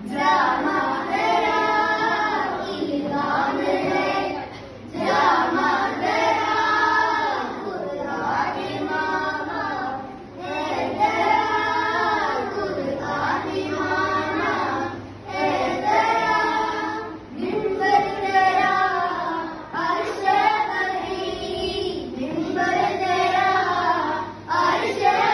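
A group of schoolchildren singing a song together, in phrases of a few seconds separated by brief pauses.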